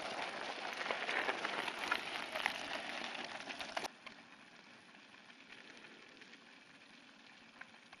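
Mountain-bike tyres crunching over a rough gravel track, heard from a moving bike, a crackly rattle with many small clicks of stones. It cuts off suddenly about four seconds in, leaving a faint steady hiss.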